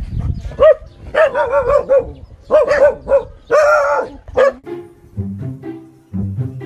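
A dog barking in quick strings of short, pitched barks. About two-thirds of the way in the barking stops and background music with short low notes takes over.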